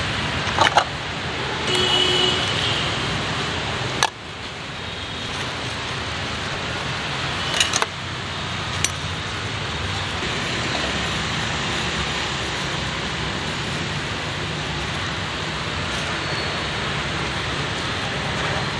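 Street-stall ambience: a steady hum of road traffic, with a few sharp metallic clinks of ladles and strainers against pots and bowls.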